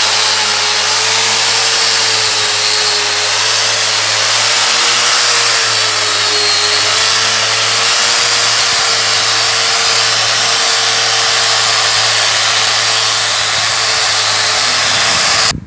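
Electric angle grinder running a 100-grit dry resin diamond polishing pad against a marble floor: a steady high whine over a dense grinding hiss, cut off suddenly near the end. It is the 100-grit dry polishing stage, working out scratches that remain.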